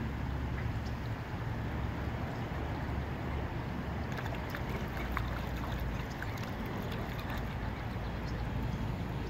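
Steady water wash with a low wind rumble, scattered with light drips and small splashes from a mallard drake and a white domestic duck upending to feed. The drips and splashes cluster in the middle.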